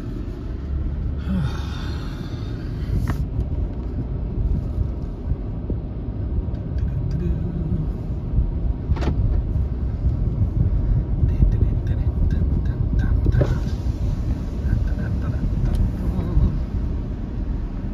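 Car driving slowly, heard from inside the cabin: a steady low rumble of engine and tyres, with a couple of short sharp clicks.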